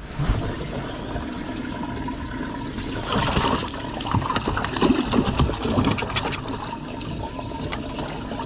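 Water sloshing and splashing in a bass boat's livewell as a hand reaches in and grabs a bass, with water trickling. The splashing is loudest about three to six seconds in.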